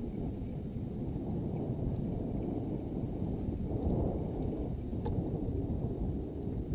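Wind buffeting the microphone as a steady low rumble, with water lapping against the boat's hull; a single faint tick about five seconds in.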